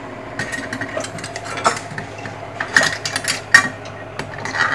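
Irregular metallic clinks and knocks as a kitchen faucet is worked and pressed down into its mounting hole in the countertop, the loudest tap about three and a half seconds in.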